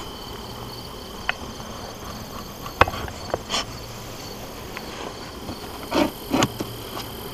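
Steady high insect chirring and buzzing around an open beehive, with a few sharp clicks and knocks scattered through it and two short, louder puffs about six seconds in.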